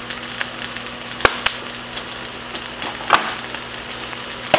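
Breaded mahi mahi fillets frying in melted butter in a nonstick pan: a steady sizzle with three sharp pops.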